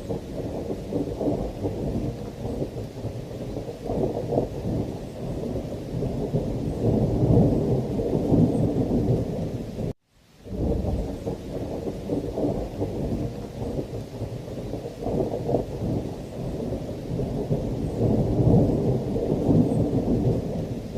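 Deep, continuous thunder rumbling over heavy rain, swelling and easing. It cuts to silence for an instant about halfway through, where the looped recording restarts.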